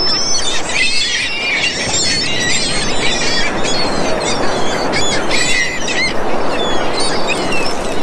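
A flock of gulls calling, many short high cries overlapping one another, over the steady rush of ocean surf.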